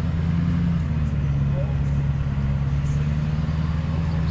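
Vehicle engine and road noise while driving at a steady pace, a constant low drone.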